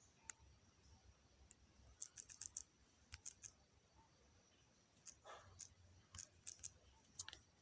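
Faint clicks and taps in short quick runs, like fingers tapping on a phone, over near-silent room tone.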